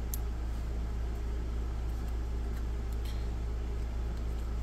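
A steady low hum at an even level, with a few faint light ticks.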